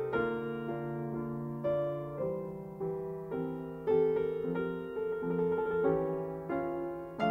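Background piano music: a slow melody of notes struck about every half second over held low notes.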